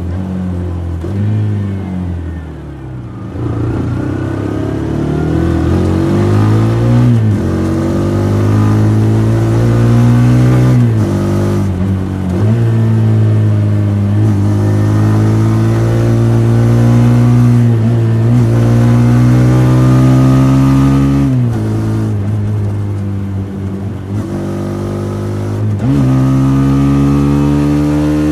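TVS Apache RTR 160 4V's single-cylinder engine and exhaust running under acceleration, its pitch climbing and then dropping sharply, several times over, as it shifts up through the gears.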